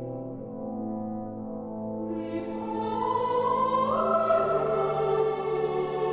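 Background orchestral music with sustained brass and choir-like chords, swelling louder about halfway through.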